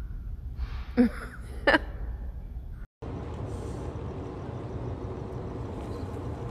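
Two short, loud snorts from a giraffe close up, about a second apart. After a cut, a steady rolling noise of quad roller-skate wheels on asphalt.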